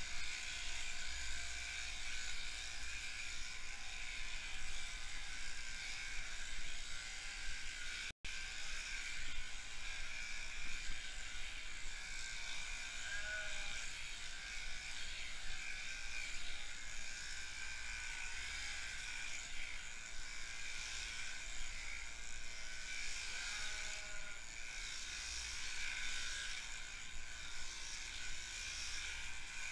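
Electric sheep-shearing handpiece running with a steady whir while shearing a lamb's fleece. The sound drops out for an instant about eight seconds in.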